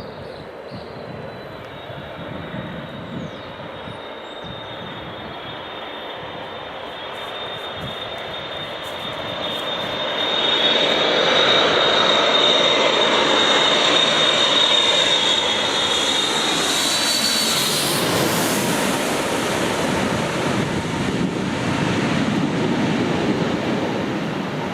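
Jet airliner passing close by: its engines run with a steady high whine over a rushing noise that builds to a peak about halfway through. As it goes past, the whine drops away and a lower rumble carries on, slowly fading.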